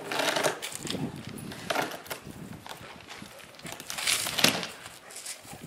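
Packed snow crunching and breaking in a few short bursts, the loudest about four seconds in: a Newfoundland dog tearing and biting into a snowman.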